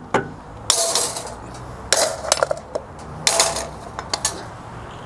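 Metal spoon clinking and scraping against a saucepan while mashed potato is stirred as it warms on the grill, about one clink or scrape a second.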